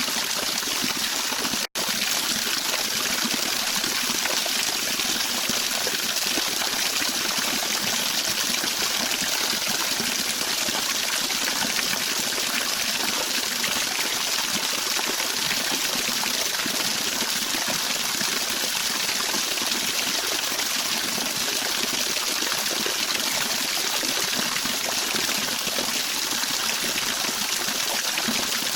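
Water of a stream flowing steadily. It cuts out for an instant just under two seconds in.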